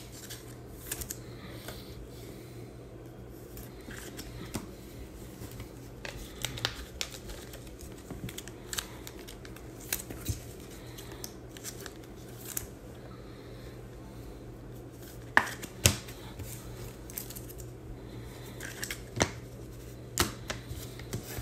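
Trading-card packs and cards being handled: scattered short clicks, snips and rustles, a couple of sharper snaps about two thirds of the way in, over a low steady hum.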